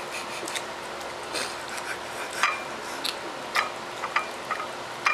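Kitten eating greedily from a food dish: irregular light clicks and clinks of the dish, some with a brief ring, about a dozen over a few seconds.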